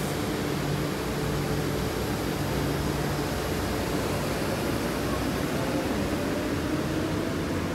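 Electric suburban train running, a steady hum and hiss with a faint whine that slowly rises in pitch from about halfway through.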